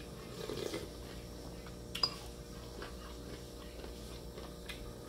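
Quiet eating sounds: chewing and mouth clicks over a low room hum, with a sharp clink of a metal spoon against a ceramic bowl about two seconds in.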